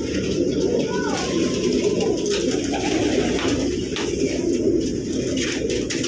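Many racing pigeons cooing at once in a loft: a dense, steady chorus of low coos.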